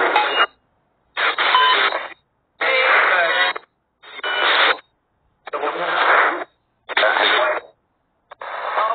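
SGK1 ghost-hunting app's spirit-box sweep: choppy bursts of radio-like static with garbled voice fragments, about seven short bursts broken by brief silences.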